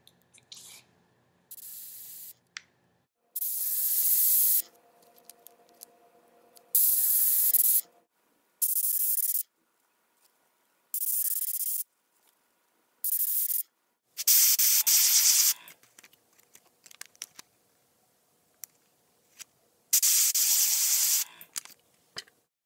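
Airbrush spraying colour onto nail tips in short bursts of hiss, about eight of them, each lasting around a second, with quiet gaps and faint clicks between.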